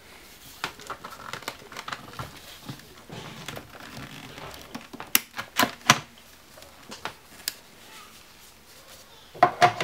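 Battery pack of an Asus X54C laptop being unlatched and pulled out: a scattered run of small plastic clicks and knocks, the sharpest three a little past halfway, with soft handling rustle between them.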